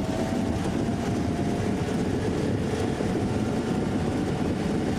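Safari vehicle driving along a dirt track: steady engine and road rumble heard from on board.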